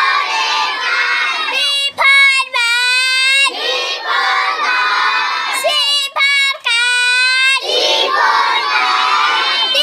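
A single high child's voice chanting in long held notes, alternating with a group of children chanting back together, in the call-and-response style of reciting the alphabet.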